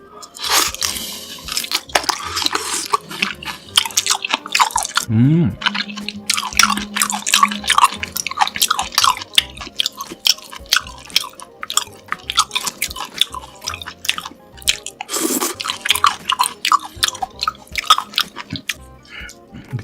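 Close-miked eating: chewing and biting with dense, irregular wet crackling and crunching mouth sounds.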